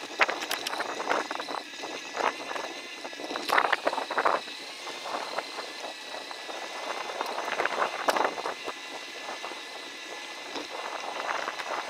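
Bicycle riding along a dirt woodland trail: tyres crunching over the ground with irregular rattles and knocks from the bike, louder bumps coming in clusters about a third of the way in and again past the middle.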